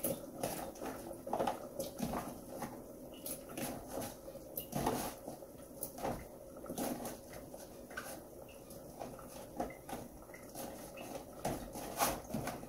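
Irregular small knocks and clatter of handling cubed squash: pieces picked from a plastic tub and dropped into a steel cooking pot, with a pot lid held nearby. A few louder knocks come about midway and near the end.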